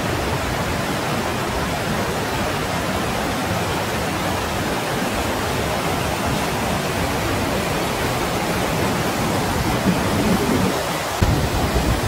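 Wide river rapids and low falls rushing over rock ledges: a steady rush of white water that gets slightly fuller near the end.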